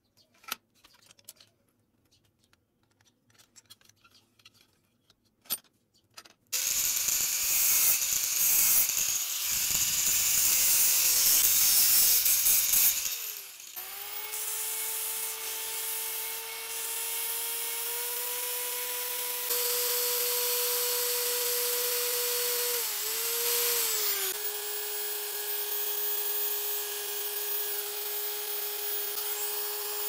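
A few faint metal clicks and taps, then a bench grinder's abrasive wheel grinding a steel part, loud and harsh for several seconds. It settles to a steady motor whine with grinding noise that sags briefly under load. Near the end, a steel piece spinning in an electric drill's chuck scrapes against a hand file over a steady motor tone.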